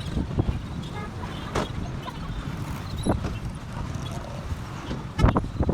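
Outdoor street noise: a steady low rumble of road traffic with scattered sharp thumps, the loudest near the end.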